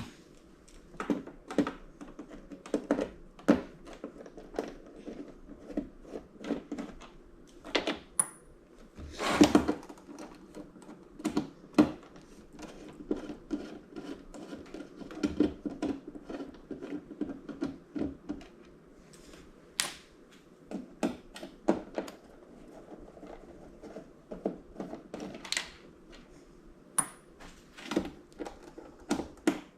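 Irregular clicking, tapping and knocking of hand tools and screws against a flat-screen TV's plastic casing as the screws are taken out, with a few louder knocks.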